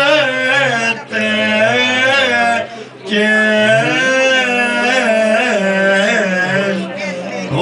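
Male voice chanting a Byzantine-style Orthodox hymn in long, held, melismatic phrases, with short breaks about a second in and near three seconds in.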